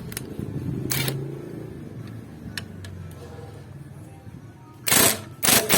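Socket wrench ratcheting in a few quick, loud bursts near the end, tightening the bolt on a scooter's front brake caliper, with faint clicks before.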